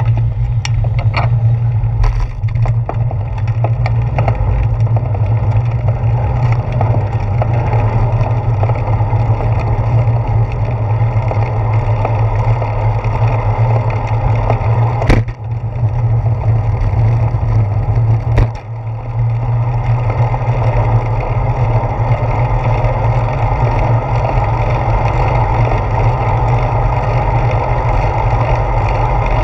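Wind and road noise on a handlebar-mounted GoPro Hero 4 on a moving bicycle: a steady low rumble, with rattling clicks in the first few seconds and two sharp knocks about halfway through, as bumps jolt the handlebar mount.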